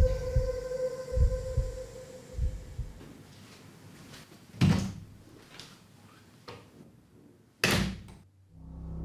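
Hospital room door shutting with a loud bang, after a sharp knock and a couple of fainter ones. Before that, slow pairs of low thumps, like a heartbeat, over a steady hum fade out, and music swells up right at the end.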